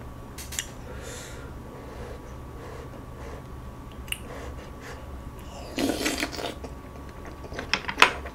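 A person chewing a mouthful of egg kimbap with ramyeon noodles close to the microphone, with a few small clicks and a short rush of breath-like noise about six seconds in. A low steady hum runs underneath.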